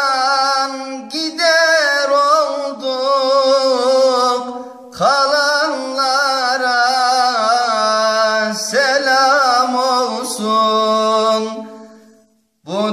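A solo voice singing a slow Turkish song with long held notes that waver and turn, with no instrument audible. It breaks off for breath about five seconds in and again near nine seconds, and fades out near the end.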